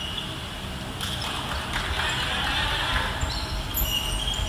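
Indoor handball play on a wooden sports-hall floor: the ball bouncing and players' shoes moving over the boards, with a few short sneaker squeaks near the end, all echoing in the large hall.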